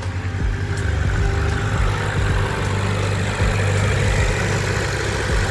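2010 Honda CR-V engine idling steadily after sitting unused for a few days, its failing power steering pump not yet making much noise.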